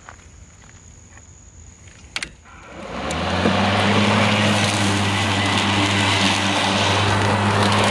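Craftsman V60 21-inch battery-powered lawn mower starting up: a couple of clicks about two seconds in, then the electric motor and blade spin up over about a second. It settles into a loud, steady hum as the mower runs through the grass.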